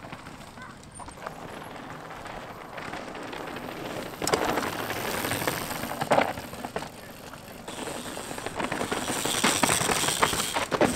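Downhill mountain bikes riding over a rocky dirt trail: tyres crunching on dirt and rock, with rattling and knocks from the bikes. It gets louder as a rider passes about four seconds in and again near the end.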